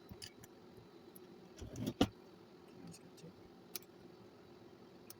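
Small metal parts clicking and clinking as an old answering machine's motor assembly is unscrewed and handled, with a louder clatter about two seconds in.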